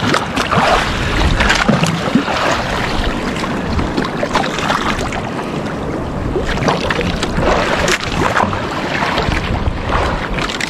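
Wind buffeting the microphone over a choppy sea, with water sloshing and splashing around a small boat: a steady rushing noise broken by irregular splashes.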